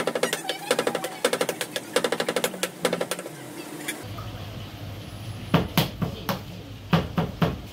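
Kitchen knife rapidly chopping raw fish on a cutting board, mincing it into a sticky paste with quick, even knocks of about eight to ten a second. The chopping stops about three seconds in, then resumes more slowly with a few heavier strokes near the end.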